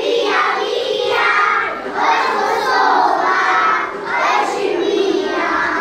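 A group of young children singing and shouting together in unison, in a few short, loud phrases with brief breaks between them.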